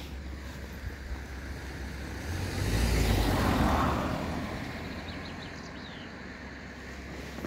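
A road vehicle passing by: its sound swells up over a couple of seconds, peaks a little past the middle, and fades away. Low wind rumble on the microphone runs underneath.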